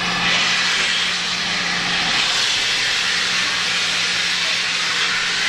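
A steam locomotive letting off steam: a loud, steady hiss, with a low steady hum beneath it that drops out for about a second in the middle.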